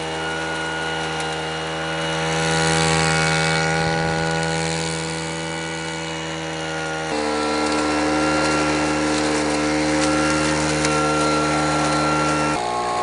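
LEHR propane-powered four-stroke leaf vacuum running steadily, a pitched engine drone with a rushing hiss on top that swells for a couple of seconds. Its pitch and level jump abruptly about seven seconds in and again near the end.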